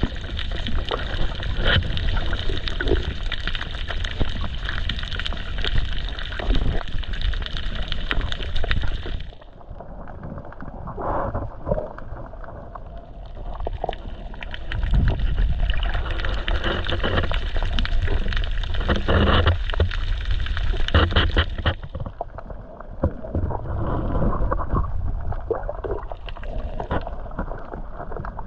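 Water sloshing and gurgling close around the microphone with a low rumble, turning muffled twice, about a third of the way in and again near the end.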